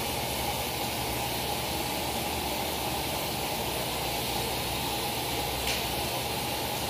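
A steady hiss of rushing water or steam that carries on without change.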